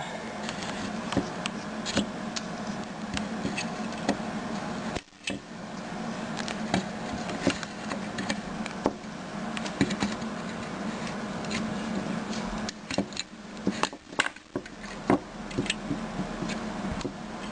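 Scattered small clicks and taps of toenail clippers being worked into a compact fluorescent bulb's base to snip the wires between its tube and ballast board, over a steady hum and hiss. The background cuts out briefly about five seconds in.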